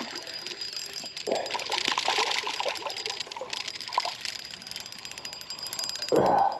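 Water trickling and splashing, with fine clicks and spatters, typical of a crappie being lifted from the water on a jig. A short, louder splash comes near the end.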